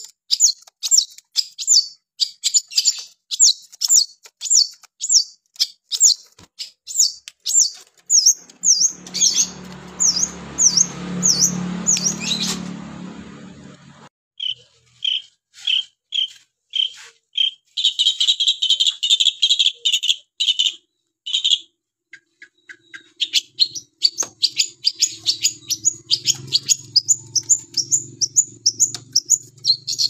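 Long-tailed shrike singing vigorously: fast, high, sharp notes repeated about two or three a second, changing around the middle to lower call notes and then a denser burst of chatter before the fast notes return. A rumbling noise swells and fades about ten seconds in, and a low hum sits under the last several seconds.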